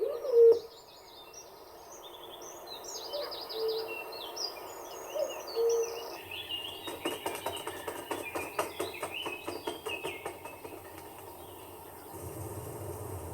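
Several birds chirping and whistling, with a few short low hooting notes in the first half. In the middle stretch a rapid rattling series of even clicks, about four a second, runs under the chirps.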